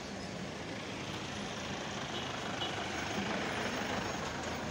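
Street traffic noise: motor vehicles running on a narrow road, a little louder about three seconds in.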